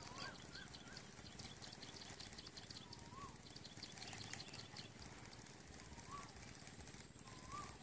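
Faint outdoor ambience with a bird calling: short chirps that rise and fall in pitch, a quick run of them at the start, then single chirps every couple of seconds.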